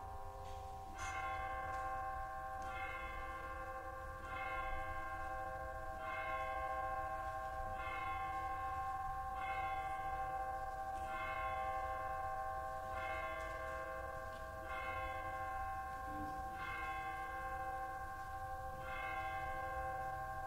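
Bells tolling, with a new stroke about every one and a half to two seconds; each stroke rings on and overlaps the next.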